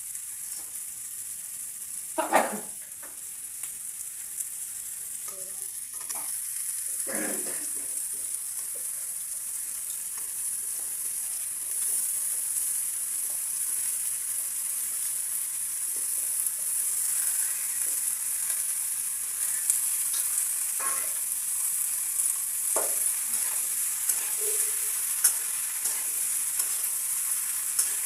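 Cauliflower and onion frying in hot oil in a pan, a steady high sizzle. A spatula stirs and scrapes against the pan now and then, with the sharpest knock about two seconds in.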